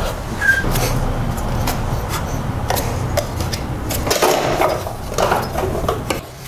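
Scattered clicks, knocks and brief scrapes of a 32mm wrench and the fan clutch being worked loose and handled at the front of a BMW E30's M20 engine, over a steady low hum.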